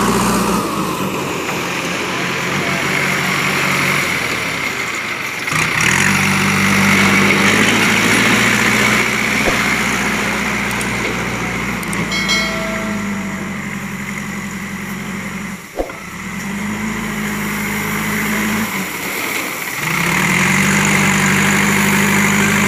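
JCB 3DX backhoe loader's diesel engine running under load as the machine drives and scoops crushed stone, its engine note holding steady and then stepping up or down a few times. A brief high tone sounds about halfway through, and a single sharp knock a few seconds later.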